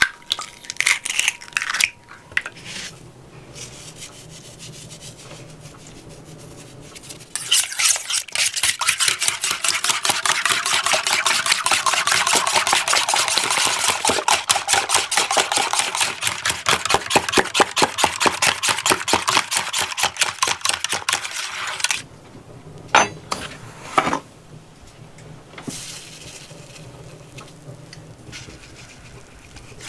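Wire whisk beating an egg-and-flour batter in an enamel bowl: a fast, steady run of clicks and scrapes of the wires against the bowl, starting about a quarter of the way in and stopping about two thirds through. Two sharp knocks follow shortly after.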